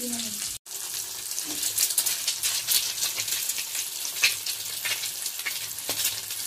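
Food frying in hot mustard oil in a pan: a steady sizzle with many sharp crackles.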